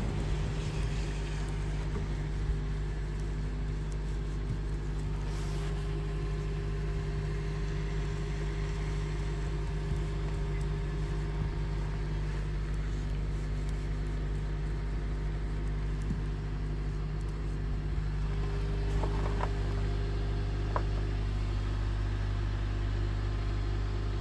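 Steady low hum of an idling engine, holding an even pitch throughout, with a few faint ticks near the end.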